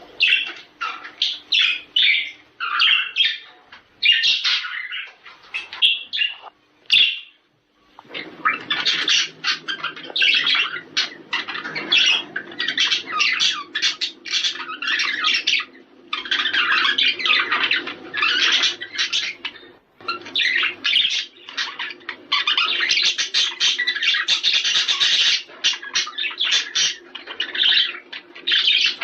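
Budgerigar warbling and chattering: a fast, unbroken stream of chirps, squeaks and squawks, the male budgie song used to stir budgies into breeding. It drops out briefly about seven seconds in.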